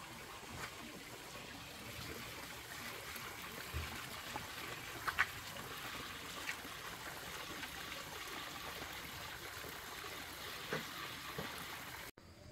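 Steady trickle of running water, with a few faint clicks and knocks over it; it cuts off abruptly near the end.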